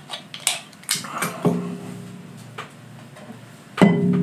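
Light clicks and knocks as a glass soda bottle and a drinking glass are handled, with a louder knock near the end followed by a steady low tone.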